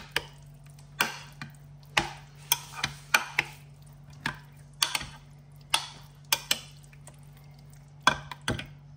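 Metal spoon stirring chunky guacamole in a glass dish, clinking against the glass in irregular sharp knocks about one to two times a second, over a faint steady hum.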